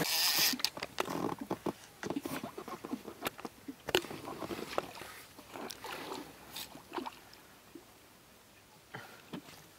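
Irregular clicks, knocks and rustling of fishing gear being handled in an inflatable boat, busy at first and dying away after about seven seconds.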